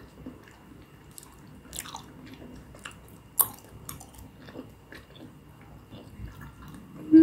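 Close-miked chewing of a mouthful of tteokbokki in sauce: soft wet mouth clicks scattered through, with a sharper click a little past three seconds.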